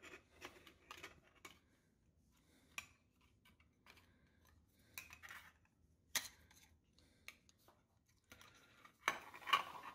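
Faint clicks, taps and rustles of a metal canning-jar lid and thin wires being handled, with a sharper tap about six seconds in and a cluster of louder handling noises near the end.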